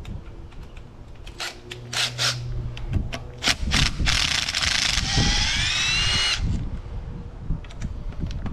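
Red cordless drill driving out a stator mounting bolt on an outboard motor: a few sharp clicks as the bit is seated, then about four seconds in the motor runs for a couple of seconds with a whine that rises in pitch as it speeds up, and stops.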